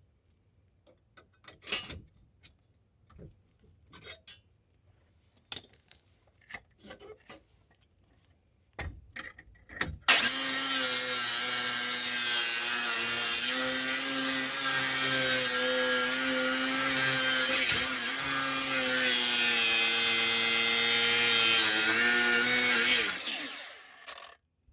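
Scattered clicks and clanks of tools being handled. Then, about ten seconds in, a power tool starts up and runs steadily at one pitch with a strong hiss for about thirteen seconds before winding down.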